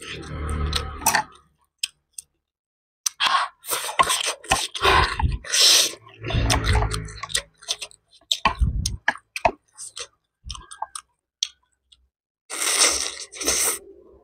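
Close-miked chewing and mouth sounds of a person eating shredded chicken and rambutan salad. They come in irregular bursts with sharp clicks, separated by short silences.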